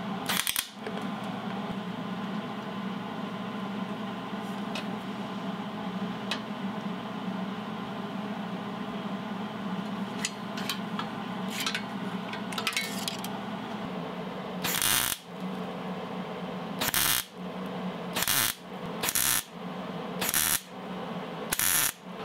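Welder laying short tack welds on the steel tab of a dipstick tube: six brief crackling bursts, each under a second, starting about 15 seconds in, over a steady background hum with a few light clicks before them.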